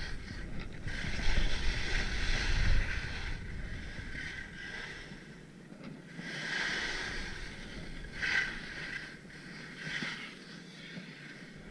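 Alpine skis hissing and scraping over packed snow through a series of turns, the noise swelling with each turn and fading between them. A low rumble of wind on the microphone runs under the first half.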